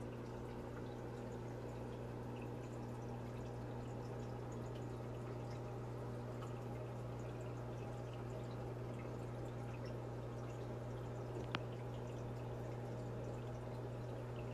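Aquarium filter running: a steady low hum with water trickling and dripping into the tank, plus a single sharp click about eleven seconds in.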